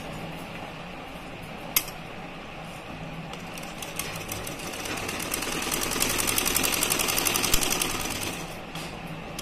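Domestic straight-stitch sewing machine stitching in a run of even rapid strokes. It picks up speed and gets louder about halfway through, then slows again near the end. A single sharp click comes about two seconds in.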